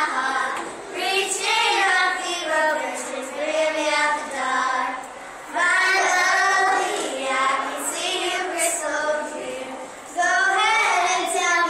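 A small group of young girls singing together, unaccompanied, in several phrases with short breaks between them.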